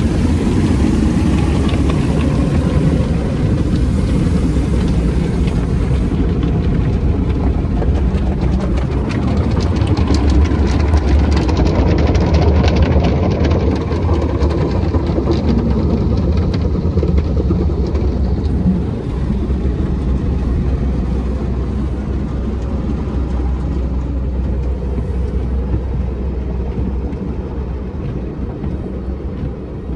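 Tunnel car wash heard from inside the car: Belanger wash brushes and cloth strips slapping and scrubbing over the glass and body, with spraying water and a deep steady rumble. The slapping is thickest several seconds in, and the whole sound eases toward the end.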